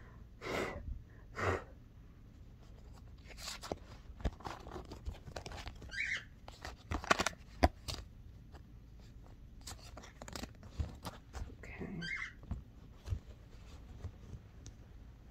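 A deck of oracle cards being handled and shuffled by hand: scattered soft rustles and clicks of cards, with two louder brief rustles in the first two seconds.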